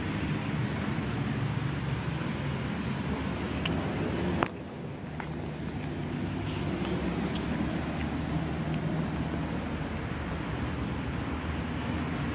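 Steady low outdoor background rumble, with a single sharp click about four and a half seconds in.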